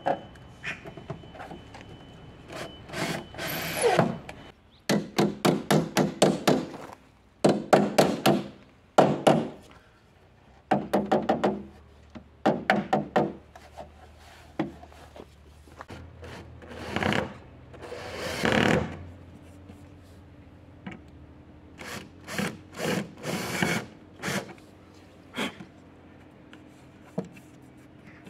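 Cordless drill/driver driving screws in short bursts, alternating with runs of quick hammer taps seating the metal step cover of a van's sliding-door sill.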